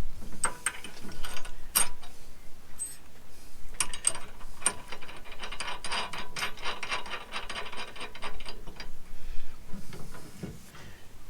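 Ratchet spanner clicking in several runs as the tow ball's bolts are tightened onto the tow bar, with the longest, fastest run from about four to nine seconds in.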